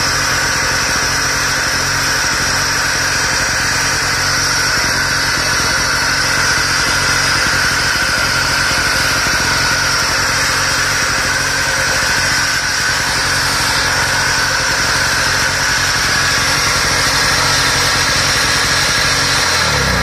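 Suzuki SX800R portable engine generator running steadily at an even speed.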